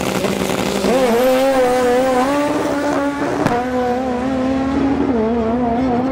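Drag-racing car engine held at high, slightly wavering revs after rising about a second in, with one sharp crack about three and a half seconds in.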